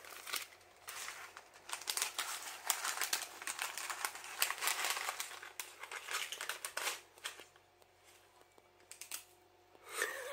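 Plastic snack wrapper of a dried squid-mirin snack crinkling and rustling as it is handled and opened, busy for about seven seconds, then quieter with a few short rustles near the end.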